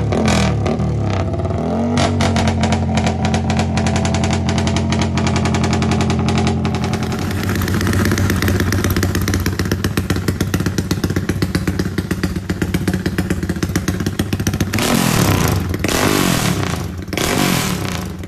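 Modified Yamaha 150 cc single-cylinder underbone motorcycle with an aftermarket exhaust, running a lumpy, pulsing rumble idle. The throttle is blipped in quick revs near the start and again near the end.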